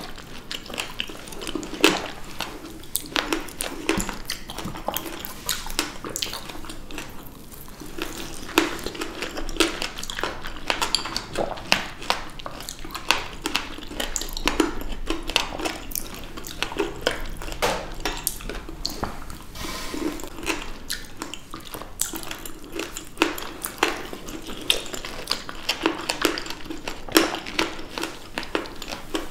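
Close-miked wet chewing of fresh blackberries: a dense run of short juicy clicks, pops and squelches with lip smacks.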